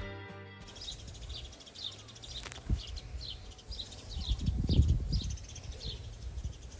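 Background music cuts off just after the start. Small birds then chirp in short repeated calls over uneven gusts of low rumbling noise, loudest about two thirds of the way through.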